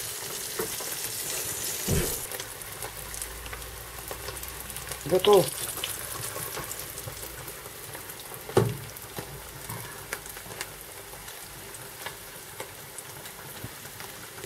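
Tugun, small Siberian whitefish, sizzling as they fry in oil in a frying pan, with the fish ready to come out. Two sharp knocks of utensils sound, one about two seconds in and a louder one near the middle.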